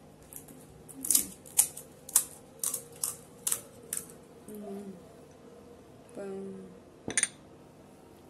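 Crisp, hollow fuchka (pani puri) shells cracking as fingertips punch holes in their tops: a quick run of about eight sharp crackles, then a pause and one more crack near the end.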